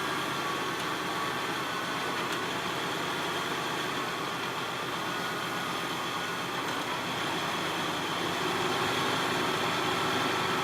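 Off-road Jeep engine running at low revs as it crawls slowly up a rock ledge, growing a little louder near the end.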